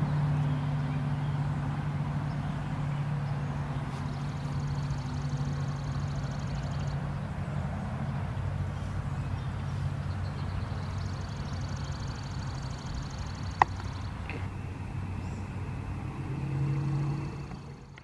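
Steady low mechanical hum over outdoor background noise, with a single sharp click about three-quarters of the way through.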